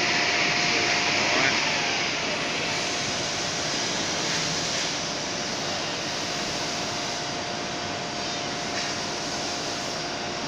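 Steady hum and hiss of running machine-shop machinery, with a constant whine held underneath. It eases slightly a couple of seconds in.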